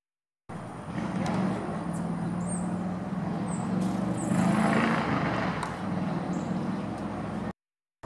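An engine running close by, a steady low hum that swells a little past the middle, with a few short high bird chirps over it.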